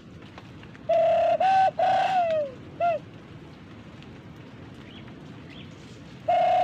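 Dove-like cooing call, loud and close: a long even note, a short note, a longer note that falls away at its end, then a short final note. The same four-note phrase starts again near the end.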